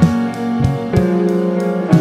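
Background music with guitar chords, a new chord struck about every half-second to a second.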